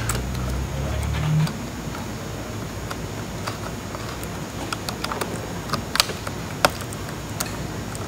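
Small clicks and taps of fingers working flat ribbon cables into their connectors on a Panasonic Toughbook CF-30 motherboard, with a few sharper clicks about six to seven and a half seconds in. A low hum sounds for the first second and a half.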